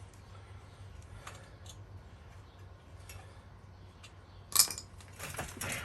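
Metal tools and bike parts clinking as bolts on a recumbent tandem trike are worked loose: scattered light clicks, one sharp metallic clink about four and a half seconds in, then a short run of clinking.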